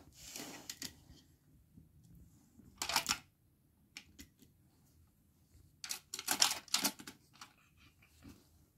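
Hard plastic toys clicking and clattering as they are handled and set down, in short clusters, the densest about six to seven seconds in.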